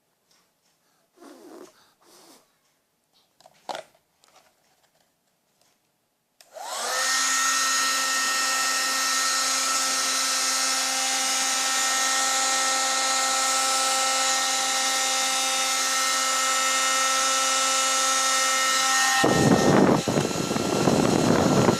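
A few faint handling sounds, then a hair dryer switches on about six seconds in and runs steadily with a motor whine over the rush of air. Near the end the sound turns rougher and fuller.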